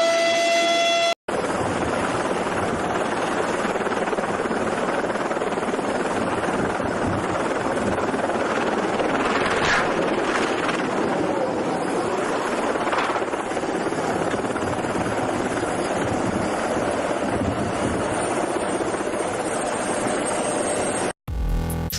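Steady, loud noise of a helicopter in flight, with no clear rhythm, running unbroken for about twenty seconds. A held siren-like tone cuts off about a second in, and music starts just before the end.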